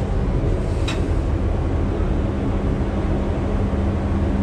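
Steady low rumble and hum inside a ship's elevator car as it travels up, with one brief click about a second in.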